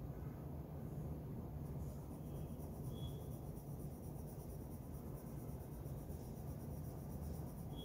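Pencil lead scratching on drawing paper in quick, short shading strokes, starting about two seconds in, over a steady low hum.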